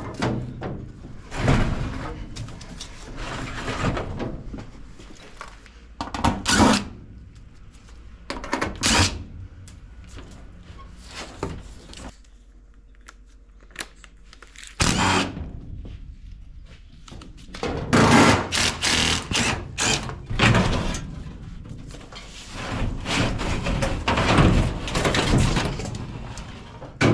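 Irregular knocks, clanks and scraping from hand work on old HVAC sheet metal and equipment as it is taken out, with a cluster of sharp clicks and knocks about two-thirds of the way through.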